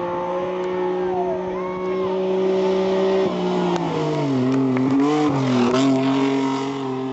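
Rally 4x4's engine running hard at speed as it passes close by on a dirt track: a steady engine note that drops in pitch about three and a half seconds in as the car goes past, loudest just after, with crackle from the tyres on the sand.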